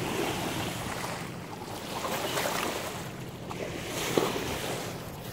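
Water rushing and splashing along a sailing boat's bow as it moves through the sea, swelling and easing in surges, with wind buffeting the microphone.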